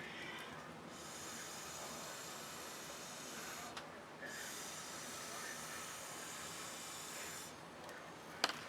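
A steady hiss starts about a second in, breaks off briefly in the middle, then resumes and stops near the end, followed by a single click.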